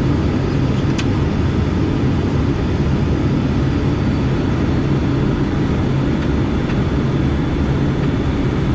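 Steady, loud cabin drone of the ATR 72-600's twin turboprop engines and propellers, with airflow noise, heard inside the cockpit during approach. A single sharp click sounds about a second in.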